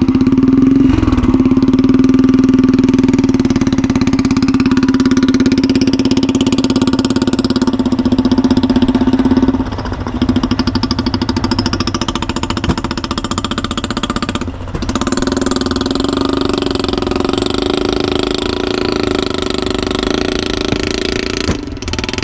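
Royal Enfield Bullet single-cylinder engine running through an exhaust fitted with a sound-amplifying attachment on its silencer, with a steady thumping note. The note drops briefly about ten seconds in and again around fifteen seconds, as if the throttle is eased or a gear is changed.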